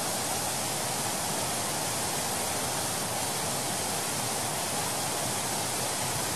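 Steady rush of water falling at a large waterfall: an even, unbroken noise.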